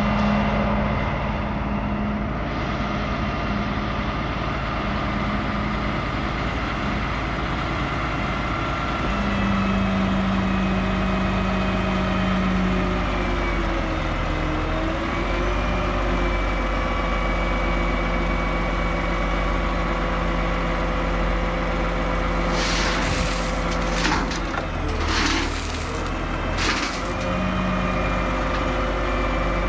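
Diesel engine of a compact earthmoving machine running steadily at work, its pitch dipping and shifting a little now and then. Several short, harsh bursts of noise come in the last several seconds.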